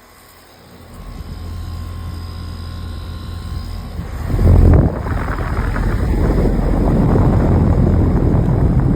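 Goodman heat pump outdoor unit running: a steady low hum with faint steady whines, which about four seconds in turns much louder into a rushing fan-air noise over a heavy low rumble.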